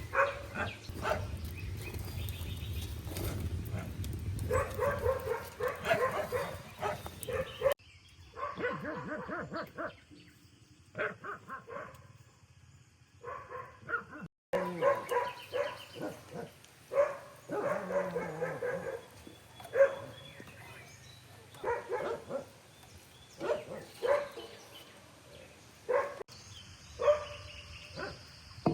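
A dog barking repeatedly in short calls.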